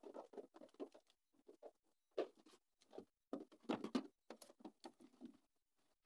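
Faint, irregular rustling, crinkling and scratching of a dried newspaper papier-mâché shell being handled while a rubber balloon is worked loose and pulled out from inside it.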